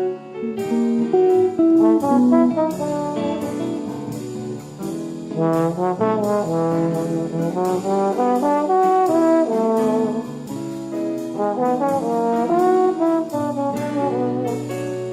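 Background music with brass instruments playing a jazzy melody over a steady beat.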